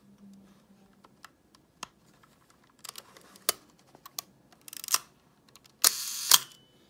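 Nikon F film SLR body being worked by hand: scattered light clicks from its controls, a louder mechanical clack just before five seconds in, then near the end the shutter and mirror firing: a sharp clack, about half a second of continuous mechanical noise, and a second loud clack. The camera's mirror lock-up is faulty.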